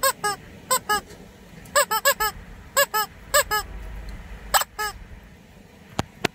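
Red rubber chicken squeeze toy squeezed repeatedly, giving about a dozen short honking squawks in quick clusters of two to four, each dipping in pitch. A few sharp clicks come near the end.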